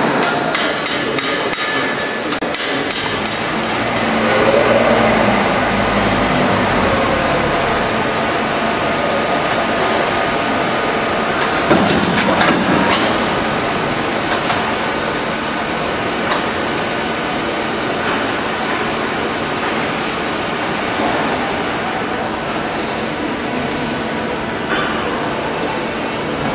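Sheet-metal decoiler running as a steel coil unwinds into the processing machine: a steady mechanical drone with metallic clicks and knocks. A loud clatter of metal comes about twelve seconds in.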